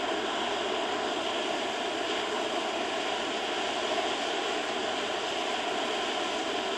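A giant gold cylinder fountain firework burning, a steady hiss of spraying sparks without bangs or pops.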